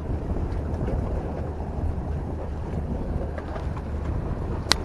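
Steady low rumble of wind buffeting the microphone by the open sea, with one sharp click near the end.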